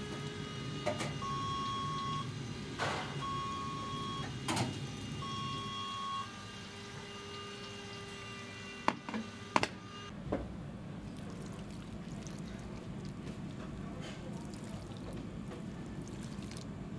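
Three short electronic beeps of one steady tone, about two seconds apart, with scattered knocks and clatter of kitchen work around them.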